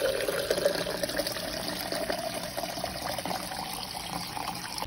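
Hot cappuccino pouring from a drink dispenser's tap into a stainless-steel tumbler, a steady stream whose pitch rises slowly as the tumbler fills.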